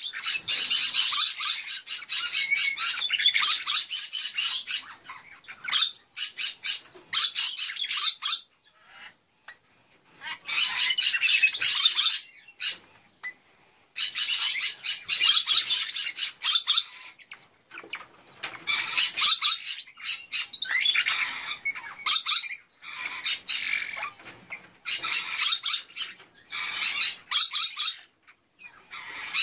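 Crimson-bellied conure (Pyrrhura perlata) nestlings giving raspy, hissing begging calls in bursts of a few seconds, with short pauses between.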